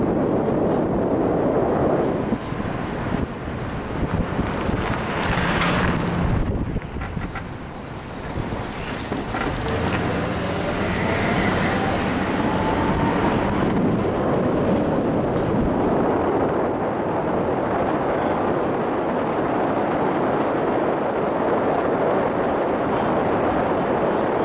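Car driving, with wind buffeting the microphone, and a faint rising whine about ten seconds in as it picks up speed.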